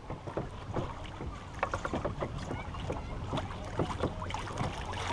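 Small waves lapping and slapping against the hull of a canoe as it moves through choppy water, in quick irregular splashes that grow louder about a second and a half in.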